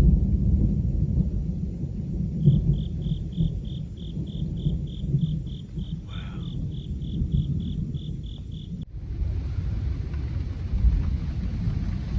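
Rolling thunder: a long, low rumble that goes on without a break. A high chirp repeats evenly, about three times a second, through the middle and stops abruptly.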